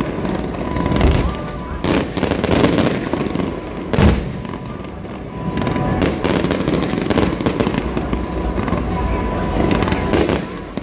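Fireworks display: a dense run of bangs and crackling, the loudest bangs about a second in and about four seconds in, with music playing underneath.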